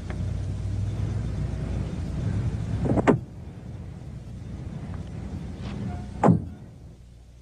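Car engine running with a steady low rumble, broken by two sharp thuds about three seconds apart. The rumble drops away after the second thud.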